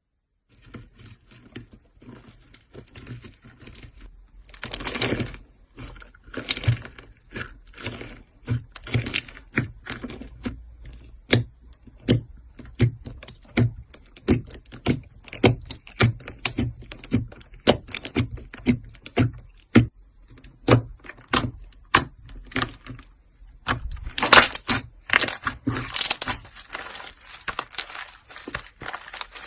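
Slime being squeezed and kneaded by hand, giving a long run of short sharp pops and clicks, about one or two a second, with louder crackling stretches at about five seconds and again near the end.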